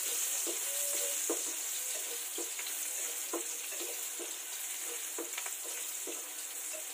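Chopped garlic sizzling in hot oil in a nonstick frying pan, stirred with a spatula, with scattered short pops and taps through the steady sizzle.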